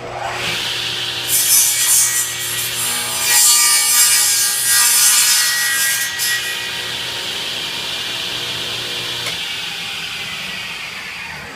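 Table saw starting up abruptly and running, its blade taking a light cut along a board's edge for a few seconds, shaving off only the high spots in the middle. About nine seconds in the motor is switched off and the blade winds down.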